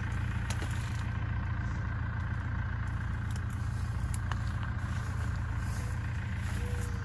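Small tractor engine idling steadily, a low even hum.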